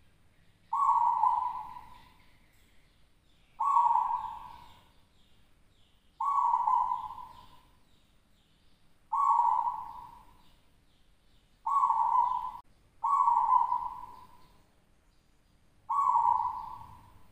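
A local-strain zebra dove (perkutut) cooing in a steady cycle: seven coo phrases, each starting sharply and fading over about a second, repeating every two to three seconds.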